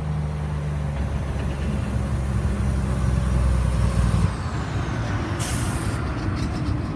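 Heavy lorry passing close by: its diesel engine grows louder to a peak about four seconds in, then drops away suddenly as it goes past. A short burst of hiss follows a second or so later.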